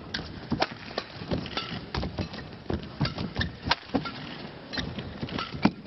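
Badminton rally: rackets striking the shuttlecock in a quick, irregular series of sharp hits, mixed with players' shoes on the court.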